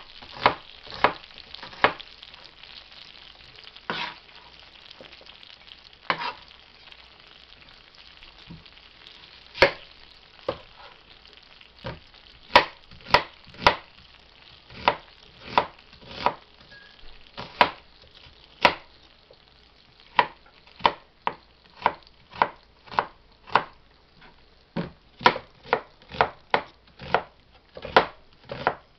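Knife slicing an onion on a plastic cutting board, each cut ending in a sharp knock of the blade on the board. The cuts come in runs broken by pauses of a few seconds, and are steadier and quicker in the second half.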